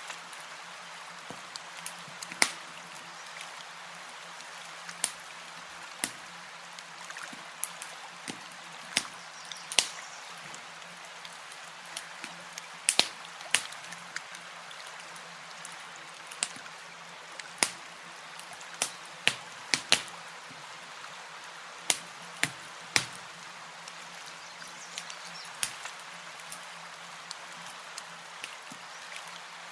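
Campfire crackling: sharp, irregular pops and snaps of burning wood over a steady soft hiss.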